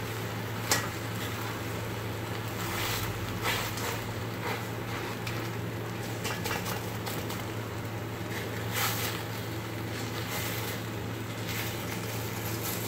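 Plastic spatula scraping and tapping against a stainless steel pan as pancake pieces are pushed and lifted, with a few sharp knocks, over a steady low hum.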